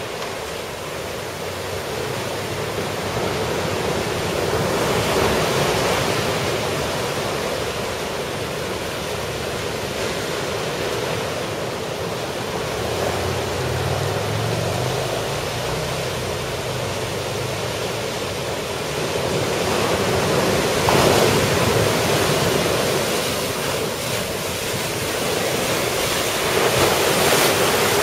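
Ocean surf from a typhoon swell, a steady wash of waves with breakers swelling louder a few times, about 5 seconds in, about 21 seconds in and near the end. Some wind on the microphone.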